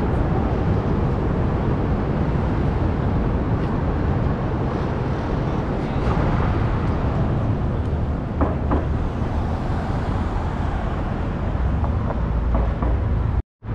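City street noise at a busy intersection: a steady wash of traffic, heaviest in the low rumble. The sound drops out for a moment near the end.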